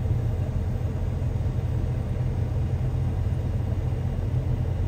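Cirrus SR22's six-cylinder piston engine running at low power while the plane taxis, a steady low rumble.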